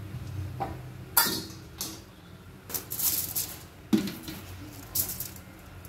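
Kitchen utensils clattering while freshly fried bhature are handled on a foil-lined tray: about five sharp knocks and clinks spread out, with a short rustle around the middle.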